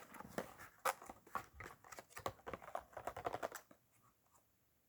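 Plastic slime packaging being handled: irregular crinkling and light clicks, stopping about three and a half seconds in.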